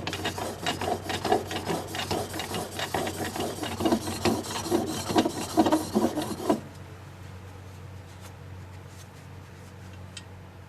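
Steel plane iron rubbed back and forth on a sharpening stone in quick, regular strokes, about two to three a second, rocked to hone the corners into a gentle camber across the edge. The strokes stop suddenly about six and a half seconds in.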